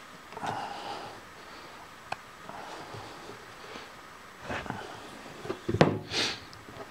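Handling sounds of a steel gear shaft being worked on a steel bench while oil clay is pressed onto its teeth: fabric rubbing close to the microphone, light scrapes and taps, and one sharp metal knock near the end, the loudest sound.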